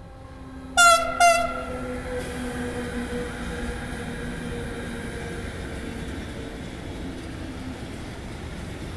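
Two short blasts of a Siemens Vectron electric locomotive's horn about a second in, a greeting to the trainspotter. Then the steady rolling noise of the locomotives and intermodal freight wagons passing slowly, with a low steady hum that fades out about seven seconds in.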